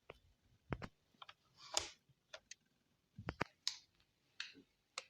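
Mechanical keyboard keys being pressed one at a time in irregular, sparse clicks, about a dozen spread over a few seconds, some with a brighter clack.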